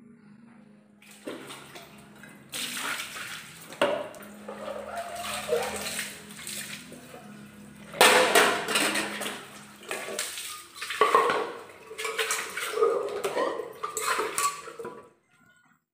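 Metal cooking pots, lids and plates clattering and clanking against each other as they are washed by hand, with water splashing and pouring from a mug. It starts about a second in, and the loudest clatter comes around eight seconds in.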